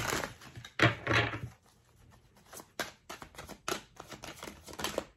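A deck of tarot cards being shuffled by hand: a run of irregular short snaps and taps of cards against each other, as a clarifier card is sought.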